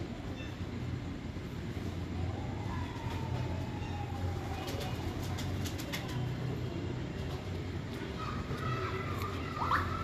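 Domestic pigeons cooing, a low continuous murmur, with a few faint clicks about five seconds in.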